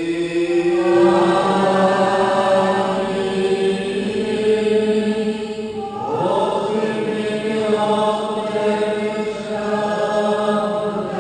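Sung liturgical chant of a Ukrainian Catholic liturgy, with voices holding long notes. A new phrase starts with an upward glide about six seconds in.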